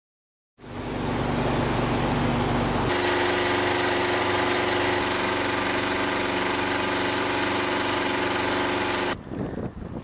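Boat's outboard motor running steadily, its tone shifting slightly about three seconds in, with wind noise; it cuts off suddenly near the end, leaving wind.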